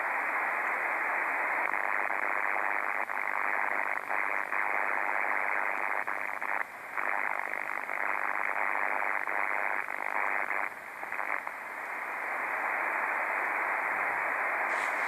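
HF radio receiver's audio full of strong pulse-type interference noise (QRN), a dense hiss of rapid pulses held to the receiver's narrow voice passband. It eases briefly about six and a half seconds in and again around eleven seconds. The operator says it looks like atmospheric noise but cannot identify its source.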